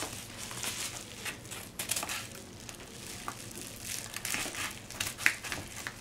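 Yellow padded paper mailer envelope crinkling and crackling in irregular bursts as it is handled and opened, with one sharper crackle about five seconds in.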